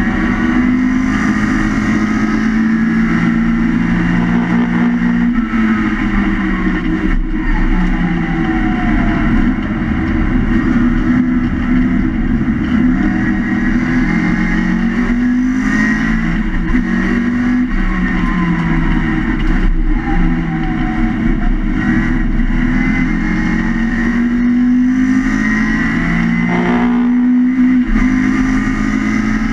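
Historic Mini Cooper race car heard from inside its stripped cabin: its Swiftune-built BMC A-series four-cylinder engine revving hard at racing speed. The engine note climbs and drops again and again through gear changes and corners.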